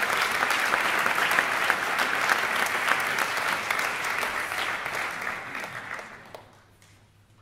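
Audience applauding, the clapping fading and dying away about six and a half seconds in.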